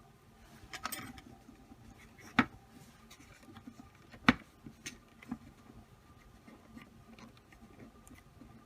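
Plastic Play-Doh mold and toy pieces handled while Play-Doh is pressed into an anchor mold: scattered light taps and clicks, with two sharper clicks about two and a half and four seconds in.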